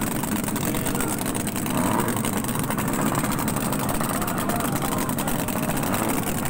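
Several racing speedboat engines running together, a steady, dense engine noise with a fast even pulse.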